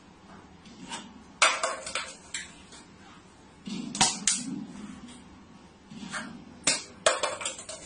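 A plastic water bottle set down on and knocking against a shelf: sharp clunks and taps in three short groups, a second or two apart.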